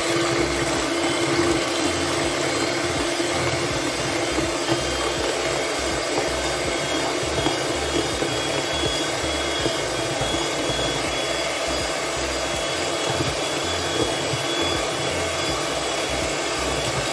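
Electric hand mixer running steadily at high speed, its beaters whipping egg whites and sugar into meringue in a stainless steel bowl.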